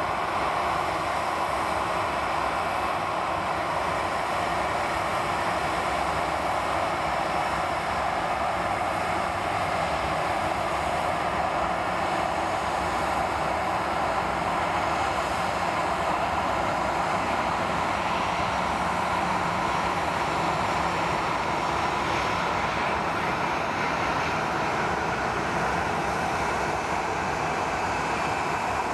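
Twin turboprop engines and propellers of an ATR 72-600 airliner making a steady drone on final approach to landing.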